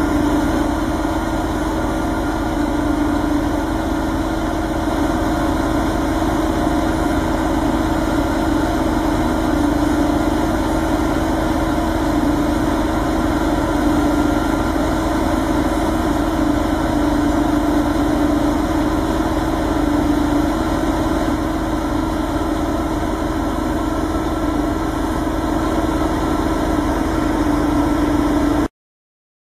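Heavy engine idling steadily with a constant hum, cutting off abruptly near the end.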